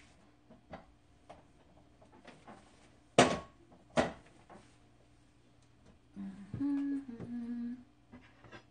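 Two sharp knocks about a second apart, around three seconds in, then a woman humming a few notes for about a second and a half.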